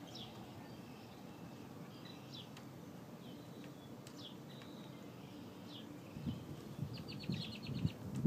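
Songbirds chirping outdoors: a handful of short, high chirps spread through, then a quick trill of about eight notes near the end. A few low thumps come in the last two seconds.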